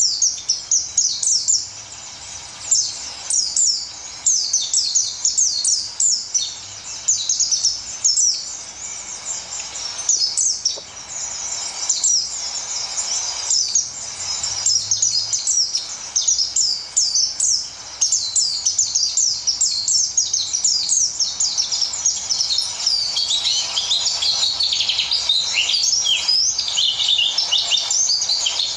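A caged white-eye (pleci dabu) singing non-stop: a long, rapid, high-pitched twittering of quick chirps, growing denser and dipping lower in pitch from about two-thirds of the way in.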